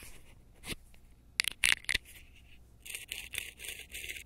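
Water-damaged handle-shaft ball bearing from a Shimano Tranx 500 reel spun by hand on a bearing tool. A few clicks first, then from about three seconds in a rough, gritty crackle, 'crispy': the sign of a bearing that has gone bad from water getting in.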